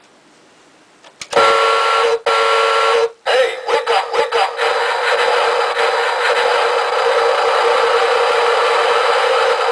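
Toy truck talking alarm clock going off through its small speaker: an electronic horn sounds twice, about a second in and again just after. A choppy stretch follows, then a loud, steady electronic noise with a held tone.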